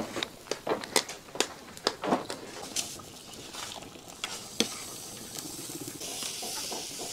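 Cubes of tofu frying in hot oil in a pan, with sharp clicks and taps of a spoon against the pan and spattering oil through the first few seconds. From about six seconds in, the sizzle settles into a steady hiss.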